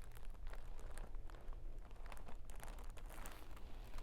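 Faint crinkling and rustling with scattered small clicks, irregular and without a steady rhythm, over a low steady hum.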